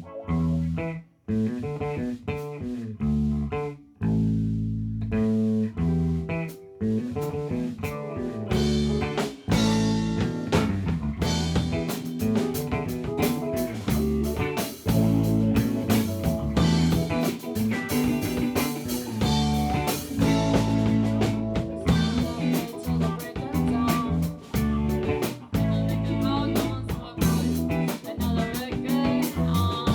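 A rock band playing its original song: guitar and bass guitar with drum kit, in a bluesy rock groove. The opening is a sparse stop-start riff with gaps, and about eight seconds in the full band comes in with cymbals and plays steadily on.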